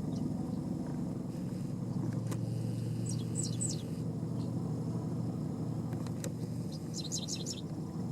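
Steady low rumble of an idling vehicle engine, with two short runs of high bird chirps, about three seconds in and again about seven seconds in.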